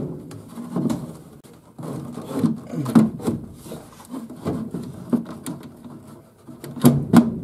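A new Fasco A170 draft inducer blower's plastic housing being shifted and pressed into place against the furnace. Irregular rubbing, scraping and knocking, with two sharp knocks close together near the end.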